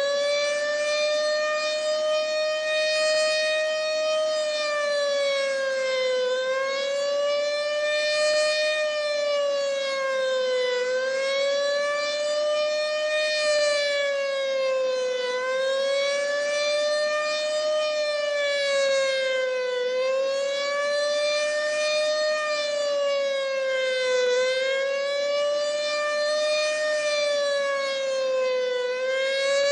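ASC OM-120 mechanical outdoor warning siren sounding the wavering Attack signal. Its single tone holds at full pitch for a few seconds after winding up, then slowly falls and rises again, about once every four and a half seconds.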